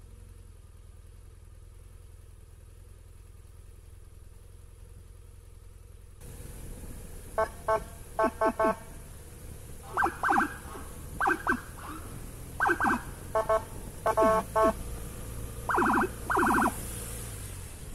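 Police escort vehicle's electronic siren given in short blasts, mostly in twos and threes, starting about seven seconds in, each blast with a quick falling chirp under it. Steady engine and road noise runs underneath and gets louder about six seconds in.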